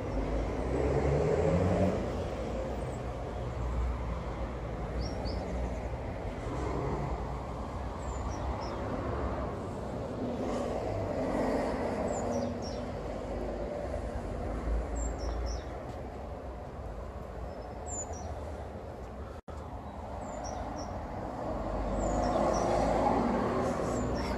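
Steady low outdoor rumble, with a small bird giving short, high, falling chirps every few seconds.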